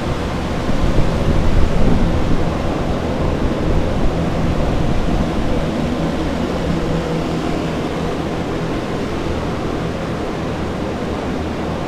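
Flood-drying equipment, several air movers and a dehumidifier, running together: a loud, steady rush of air over a low hum. The sound swells briefly about a second in.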